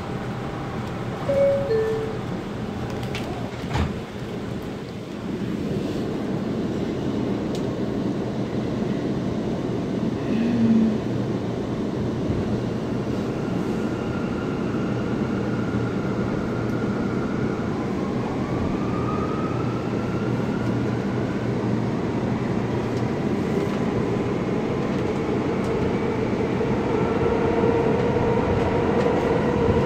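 Interior of an R179 subway car: a brief two-note descending door chime about a second in, then the train pulls out of the station and its propulsion motors whine, rising in pitch as it accelerates, over steady wheel and track noise that grows louder near the end.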